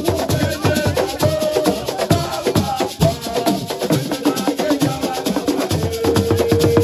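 Assiko music: fast, dense hand drumming with rattling shakers and a melodic voice line over it. A long steady note comes in near the end.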